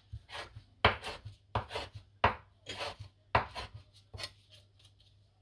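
Kitchen knife chopping green onions on a bamboo cutting board: about a dozen sharp, uneven strokes, roughly two a second, that stop a little after four seconds in.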